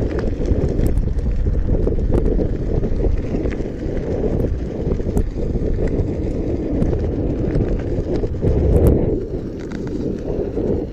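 Wind buffeting the microphone of a rider moving along on an Inmotion V10F electric unicycle, a steady low rumble with scattered light clicks and rattles.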